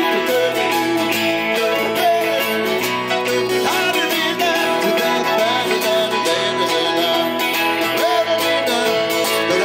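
Live band music through an outdoor PA: strummed acoustic guitar with electric guitar and keyboard, playing steadily.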